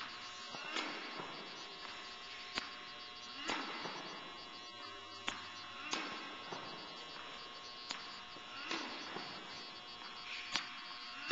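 A tennis rally: sharp pops of a tennis ball off racquet strings and the court, in pairs less than a second apart about every two and a half seconds, echoing in a large hall over a steady hum.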